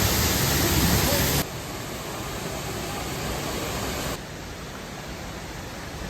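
Waterfall's steady rush of falling water. It drops abruptly in loudness about a second and a half in and again about four seconds in.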